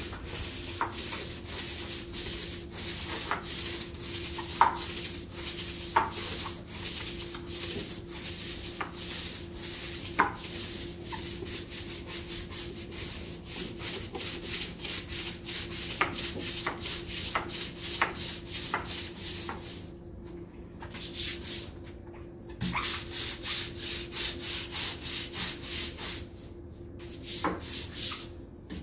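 Long-handled scrub brush scrubbing soapy concrete-block walls and a concrete floor in brisk back-and-forth strokes, about two a second, with a few short pauses near the end.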